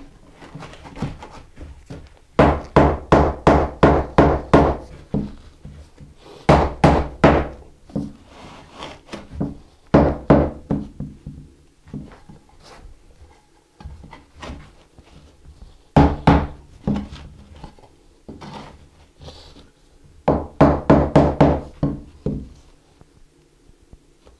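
Dull thuds of a 2x4 being pounded down onto a sand-mix deck mud shower pan bed to pack it, in several runs of quick blows, about four or five a second, with pauses between.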